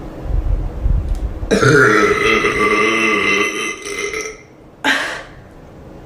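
A woman's long, drawn-out voiced burp lasting about three seconds. Low thuds come before it, and a brief breathy noise follows about half a second after it ends.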